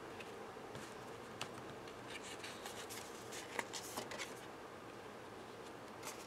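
Faint handling of cardstock: a few light taps and soft rustles as paper card panels are picked up and laid down onto a card layout, over a low steady hiss.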